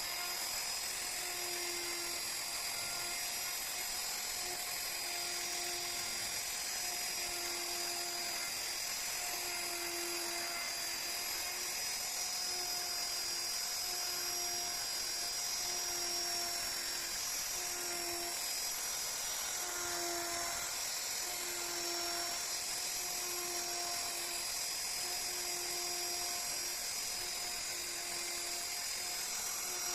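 High-speed electric carving power tool running steadily, a constant high whine with no pauses, with a lower hum that pulses on and off about once a second.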